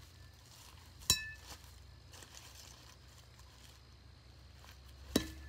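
Two sharp metallic pings with a brief ring, about a second in and again near the end: an Easton metal baseball bat being struck.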